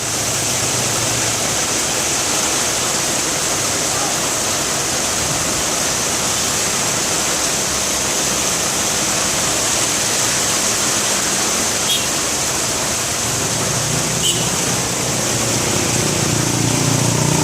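Heavy rain pouring down in a steady, dense hiss. In the last few seconds a vehicle engine's low hum grows louder as traffic moves slowly past.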